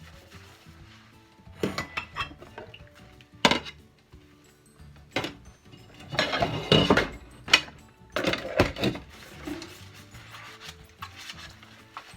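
Dishes and cutlery knocking and clattering as they are handled during washing up, scattered at first and busiest in the middle of the stretch.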